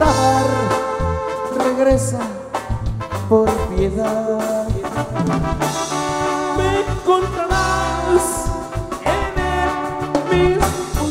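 Live band music from a regional Mexican group: trombones and saxophone carry the melody over a pulsing bass and drums.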